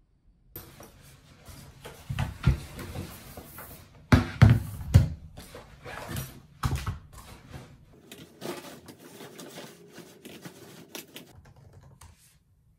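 Items being handled and set down on a desk: a laptop, a tablet and a phone, with several loud knocks. This is followed by a run of quick, light clicks of typing on a MacBook keyboard.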